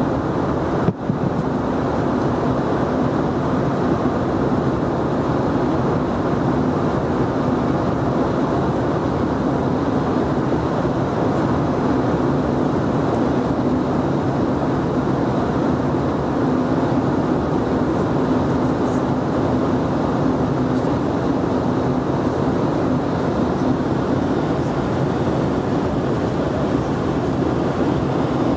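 Steady in-flight cabin noise of an Embraer EMB-145 regional jet: the hum of its two rear-mounted turbofan engines mixed with airflow over the fuselage, heard from a window seat.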